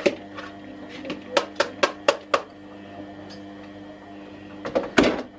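Carrot being grated on a handheld grater over a plastic bowl: sharp clicks and knocks, a quick run of them at about four a second in the middle and a louder knock near the end, over a steady low hum.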